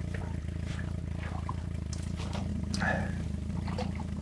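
Steady low hum of a 50 hp outboard motor idling, with a few faint splashes of water near the boat.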